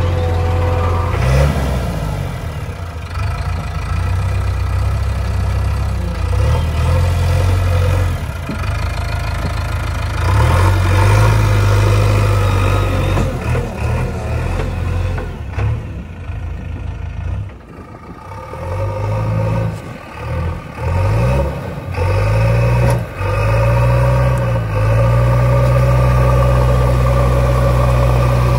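JCB 3DX backhoe loader's diesel engine running and revving up and down again and again as it works the loader and backhoe, briefly dropping back about two thirds of the way through before pulling hard again.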